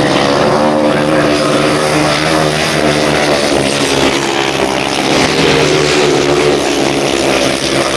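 Several grasstrack solo racing motorcycle engines running hard together as the bikes slide through the bend. The loud engine notes waver slightly in pitch as they throttle on and off.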